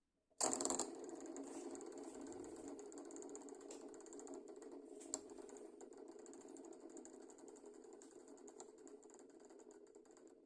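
LED spinning top set spinning on a hard surface about half a second in: a loud start, then a steady rattling whir that slowly fades as the top loses speed.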